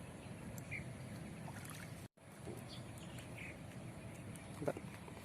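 Steady outdoor background noise with a few faint short chirps. It drops out for an instant about two seconds in, and there is a single short knock near the end.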